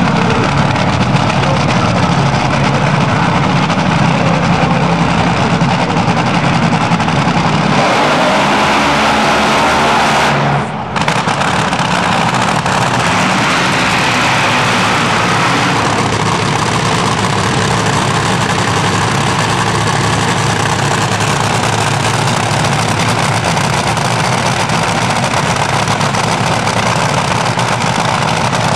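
Supercharged nitro engine of a front-engine nostalgia Top Fuel dragster running at idle. About eight seconds in it swells to a fuller, harsher sound for several seconds, typical of the burnout, with a brief dropout near eleven seconds. It then settles back to a steady idle as the car rolls.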